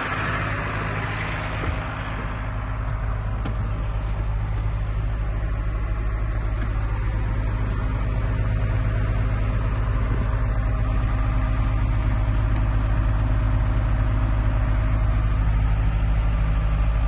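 The 2012 Iveco 6x2 crane truck's diesel engine idling steadily, heard from inside the cab as a low, even hum. It grows slightly louder a couple of seconds in, and a few light clicks sound over it.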